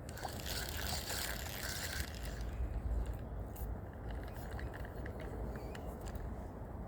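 Low rumble of wind on the microphone with a hissing rush for about the first two seconds, then scattered light clicks and scrapes of fishing gear being handled.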